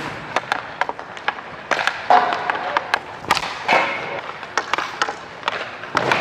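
Ice hockey skate blades scraping and carving on the ice, with many sharp clacks of sticks and pucks, and two longer, louder scrapes about two seconds and nearly four seconds in.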